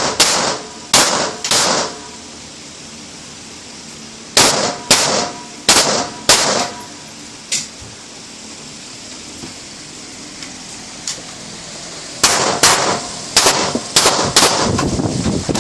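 Handgun shots fired indoors in quick strings: three near the start, four more a few seconds later, then a faster string near the end, with a quiet pause in between. Some shots are followed by a short metallic ring.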